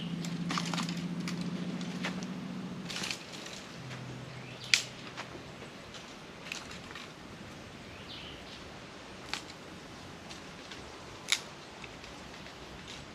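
A few sharp snapping clicks several seconds apart, with a low steady hum through the first three seconds.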